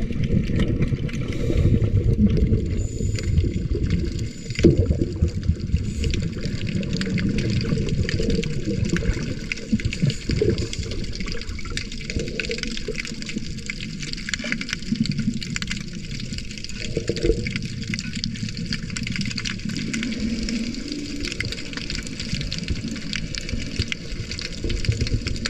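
Water gurgling and churning: a continuous deep rush with a fainter hiss over it.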